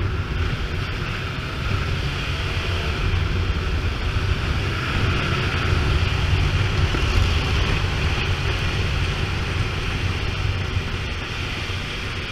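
Suzuki Bandit 600's inline-four engine running steadily while the motorcycle cruises, with wind rushing over the bike-mounted camera's microphone.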